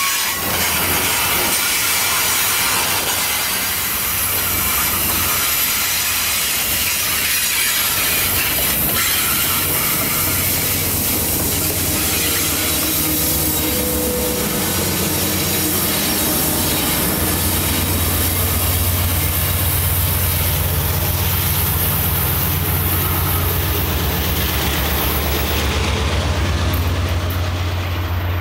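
Freight train of autorack cars rolling past close by: a continuous rumble and hiss of steel wheels on rail, with some wheel squeal and clicks. From a little past halfway, a diesel locomotive's low, steady engine drone grows as a locomotive in the train goes by.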